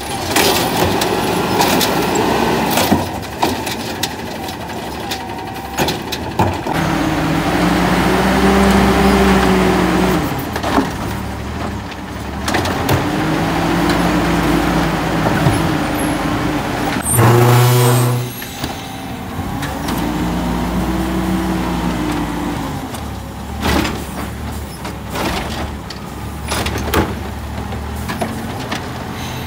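Automated side-loader garbage truck with a natural-gas engine revving up and down in three rounds to drive its hydraulic arm as it grabs, lifts and dumps carts into the hopper, with scattered clanks and a short loud burst about two-thirds through.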